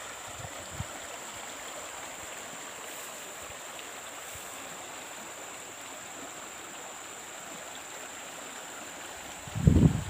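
Muddy stream rushing steadily through and over a jam of fallen logs. A few loud low rumbles break in just before the end.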